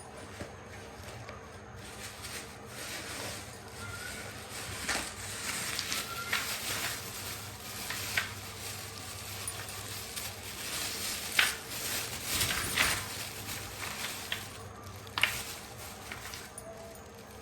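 Packaging being handled and opened: continuous crinkling and rustling with many sharp clicks and taps scattered through it.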